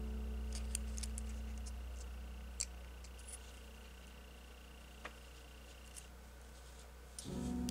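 A few light, sharp clicks and ticks of thin etched steel model parts being handled and their tabs bent, over soft sustained ambient background music.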